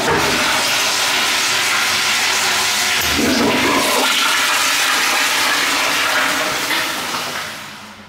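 Commercial toilet with a Sloan sensor-operated flushometer valve flushing: a loud, steady rush of water with a deeper surge about three seconds in, tapering off near the end.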